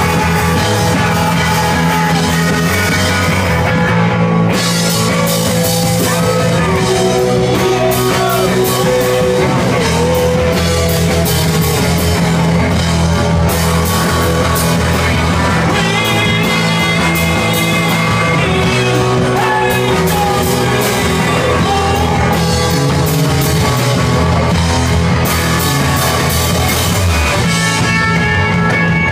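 Live rock band playing loud and steady: electric guitars over bass and a drum kit.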